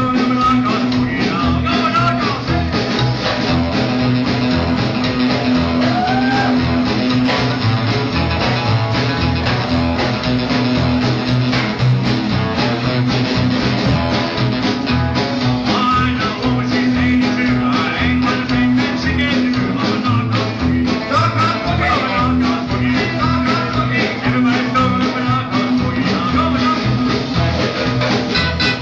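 Rockabilly music: a band playing guitar with a steady beat, with singing at times.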